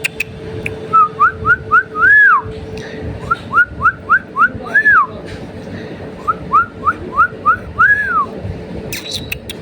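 A parrot whistling the same phrase three times: a run of four or five short rising notes, then one longer note that rises and falls.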